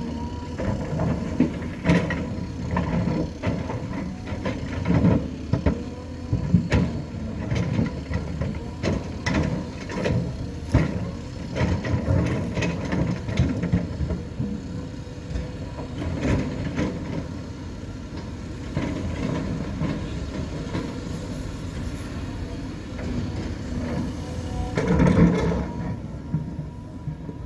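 Diesel engine of heavy earthmoving machinery running steadily, with frequent metallic clanks and knocks over the first half or so. It settles quieter for several seconds, then gives a loud surge with clatter near the end.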